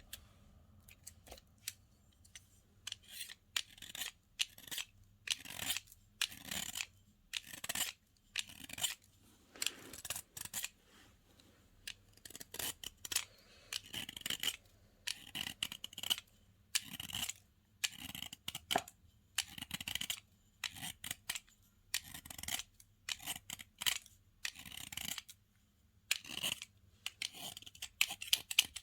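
Slime being squeezed and worked by hand: a steady run of short sticky crackles and clicks, about one to two a second, with brief quiet gaps between.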